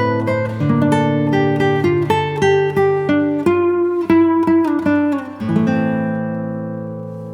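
Background music: an acoustic guitar picking a melody of single plucked notes, ending on a chord that rings out and fades from about five and a half seconds in.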